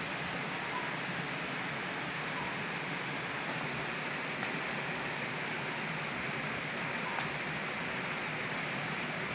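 Steady, even hiss with a couple of faint ticks.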